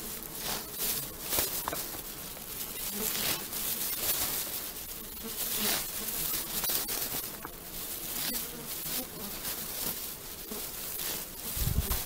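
Rustling and crackling of fireweed leaves and stems as they are picked by hand and dropped into a bag, with insects buzzing around. A low rumble near the end.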